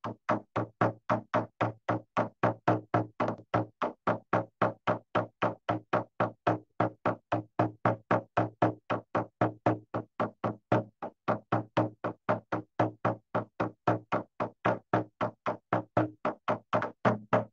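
A hand drum beaten in a fast, even rhythm of about four to five strikes a second, each strike a low thump.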